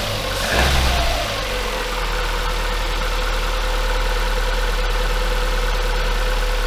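Freshly rebuilt 1.6-litre petrol four-cylinder engine of a 2007 Opel Zafira running just after its first cold start of the morning. It revs up briefly about half a second in, then falls back and settles into a steady idle.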